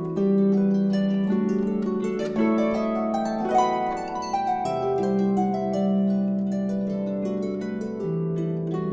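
Celtic harp played solo: a melody of quick plucked notes over ringing bass notes.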